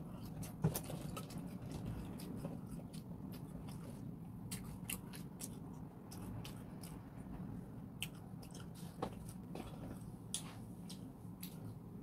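A person chewing tapioca pearls from milk tea close to the microphone, with frequent small wet clicks and smacks over a steady low hum.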